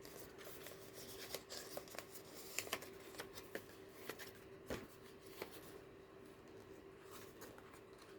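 Faint rustling and light scattered taps of thin-card journal pages, envelopes and paper inserts being handled and turned.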